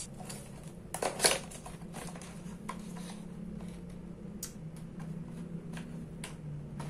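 Cardboard retail box of a computer mouse being handled and opened by hand: scattered light clicks and rustles of the cardboard and plastic packaging, with a louder rustle about a second in. A steady low hum runs underneath.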